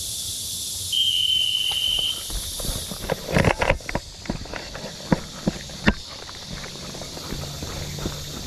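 A high, steady electronic beep about a second long, the start signal right after a countdown. Then footsteps moving through jungle undergrowth, with irregular crunches and a few sharp knocks.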